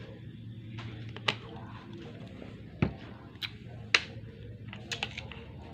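A few sharp clicks and knocks of plastic objects being handled, with one heavier thump about three seconds in, as a plastic drink bottle is set down and a plastic bowl is moved. A steady low hum runs underneath.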